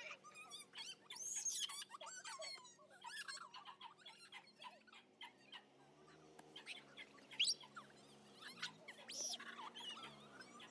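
A dog making short, high-pitched whining squeaks again and again during rough play.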